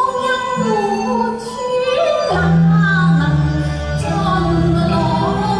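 Cantonese opera singing: a woman's voice sings a sliding, ornamented melodic line over instrumental accompaniment. Low sustained accompaniment notes come in a little over two seconds in.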